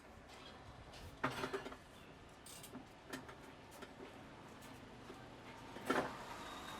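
Hands of a barber's head massage patting and slapping on a head: a quick cluster of slaps about a second in, a few single taps, and the loudest slap near the end. Faint steady roadside traffic noise lies underneath.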